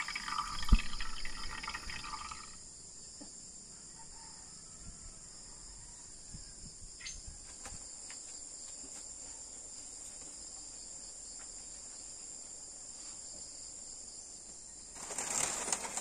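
Steady high-pitched buzz of insects, with one sharp knock about a second in. Near the end, dry rustling and scraping of woven bamboo mats being pulled about.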